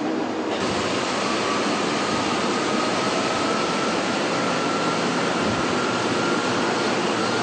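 Steady factory machinery noise, a constant mechanical hiss with a faint high whine slowly rising in pitch.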